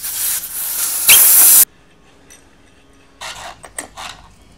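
Air hissing out of a motorcycle tire through the valve stem with the valve core removed, deflating the tire. The hiss grows louder for its last half second and cuts off suddenly about a second and a half in. Near the end come a few short knocks as a clamp-style bead breaker is set on the tire.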